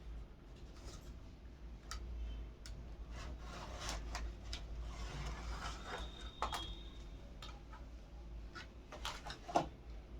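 Hands handling earphone packaging and earphones: intermittent rubbing and scraping with scattered light clicks, over a steady low hum.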